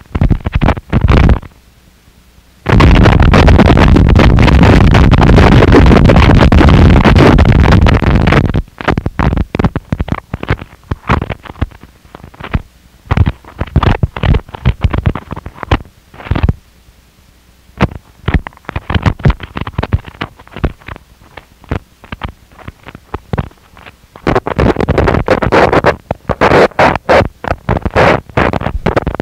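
Harsh noise music: a loud, dense wall of distorted noise across the whole range that cuts out briefly about two seconds in. From about eight seconds it breaks into rapid stuttering bursts with short gaps, and thickens into a dense wall again near the end.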